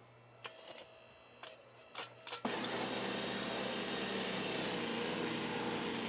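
Faint quiet with a few small clicks, then about two and a half seconds in a steady mechanical hum starts abruptly and holds: the home-built electric tractor's motor running as it pushes dirt with its blade.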